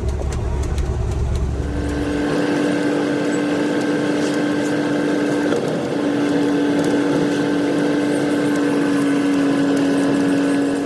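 Tata truck cab while driving on a highway: steady engine and road noise. About two seconds in, the deep rumble gives way to a constant droning tone.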